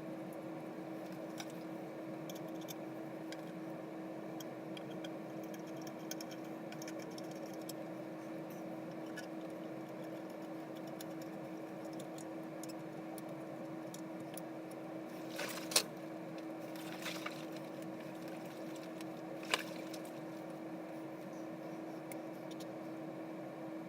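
A steady hum with scattered small clicks and light rattles, and two sharp clicks a few seconds apart in the second half.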